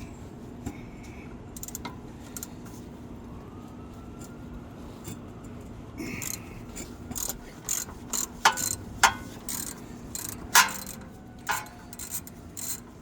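Hand ratchet wrench clicking in short, irregular strokes with metal tool clinks as a suspension bolt is turned loose by hand. The clicking is sparse at first and gets busier and louder in the second half.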